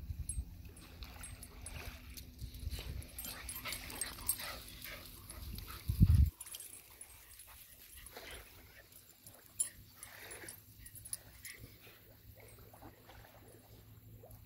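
Weimaraner puppy whimpering softly, with wind rumbling on the microphone in the first half, loudest in a short gust about six seconds in.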